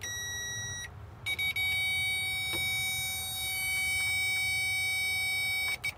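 Electronic circuit tester giving a steady electronic beep: a short tone, then after a brief gap a longer, slightly higher tone lasting about four and a half seconds, as the probe is held on the starter solenoid wiring.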